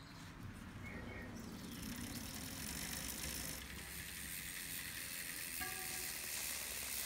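Mountain bike rear wheel spinning by hand while its disc brake rotor is wiped with tissue to degrease it: a steady dry rubbing hiss, with a brief squeak about five and a half seconds in.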